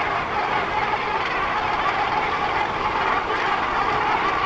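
Dense, continuous din of a Cape gannet breeding colony: many birds calling at once, harsh and overlapping, with no break.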